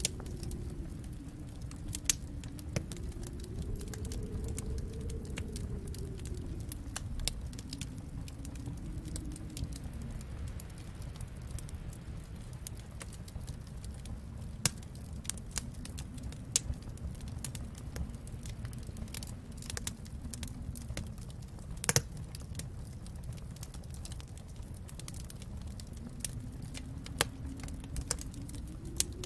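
Fireplace fire crackling, with scattered sharp pops, a loud one about twenty-two seconds in, over a low rumble that slowly swells and fades.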